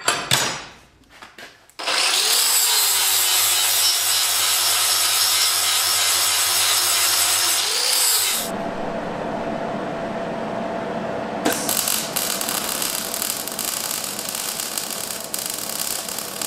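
Angle grinder running and grinding steel for several seconds, with a steady whir. Near the middle the sound changes, and for the last few seconds an electric arc welder crackles as it welds the anvil's steel body and top together.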